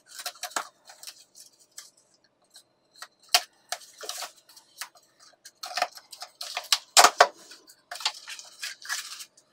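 Scissors cutting the packing tape on a cardboard box, then the tape pulled up and the cardboard flaps opened. It is an irregular run of snips, scrapes and crackles, loudest about seven seconds in.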